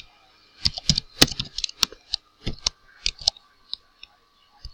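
Computer keyboard typing: an irregular, quick run of key clicks that thins out and stops about four seconds in.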